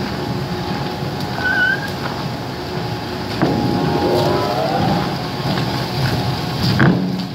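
Four-shaft industrial shredder running, its toothed cutter shafts grinding and tearing through paper waste in a steady mechanical din, with a brief sharp crack near the end.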